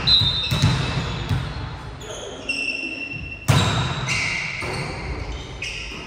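Volleyball play in a large, echoing sports hall: sharp slaps of the ball being hit, the loudest about three and a half seconds in, with short squeaks of sneakers on the court floor between the hits.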